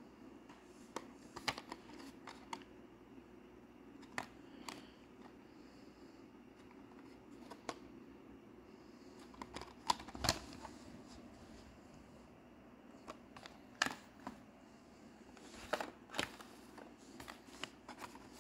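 Cardboard-and-plastic blister cards of Hot Wheels cars being handled and turned over: scattered light clicks, taps and crinkles in small clusters, the sharpest about halfway through and again near the end, over a faint steady room hum.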